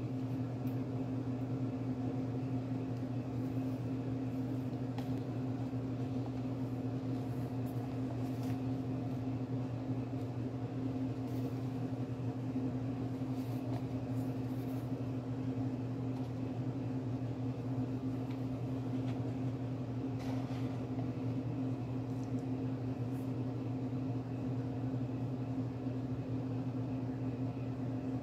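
A steady low mechanical hum made of two droning tones, unchanging throughout, with a few faint ticks now and then.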